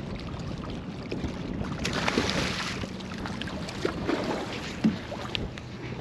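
Wind on the microphone and water slapping against a boat's hull, with scattered small clicks and knocks. A louder rush of noise comes about two seconds in.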